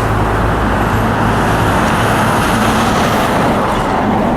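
Steady, loud roar of freeway traffic passing close below, with a low engine drone running through it.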